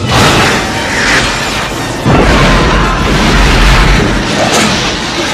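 Film space-battle sound effects: ship's weapons fire and explosions, a sudden blast at the start and a second deep, rumbling boom about two seconds in that lasts about two seconds, over film score music.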